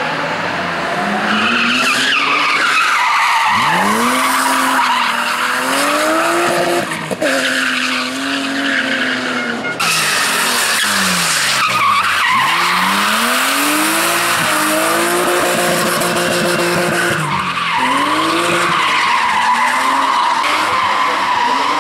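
BMW M3 E36 race car drifting through tight corners: its straight-six engine revs climb and drop again and again with throttle and gear changes while the rear tyres squeal and slide.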